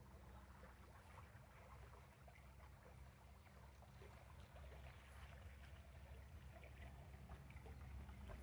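Near silence: a faint, steady low rumble of outdoor background.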